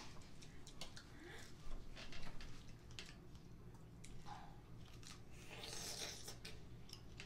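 Faint sounds of people eating strawberries: quiet chewing with small clicks and soft rustles, and a brief breathy rustle around six seconds in.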